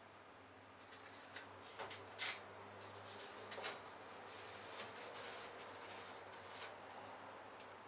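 Faint handling of paper or card pieces: light rustles, taps and clicks, with a few sharper rustles in the first half, over a low steady hum.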